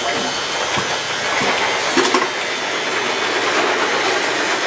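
A steady, loud rushing hiss, with a brief click about two seconds in.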